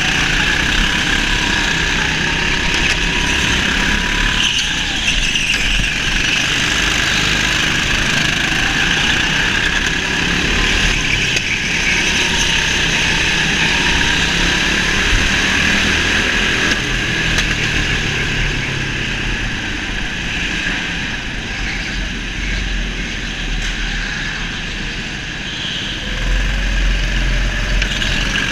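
Go-kart motor running at speed, its note rising and falling as the kart goes through the corners, with other karts running close by. A heavier low rumble comes in near the end.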